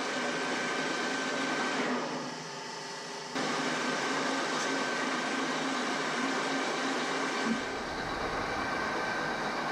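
Metal lathe running steadily: a mechanical drone with a steady whine. It drops quieter about two seconds in and comes back abruptly a second and a half later, and a low rumble joins near the end.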